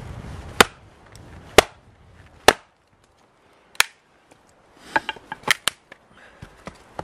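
Hatchet chopping into a dense firewood log on a chopping block: four sharp blows about a second apart. A quick cluster of lighter wooden knocks follows as the split pieces come apart.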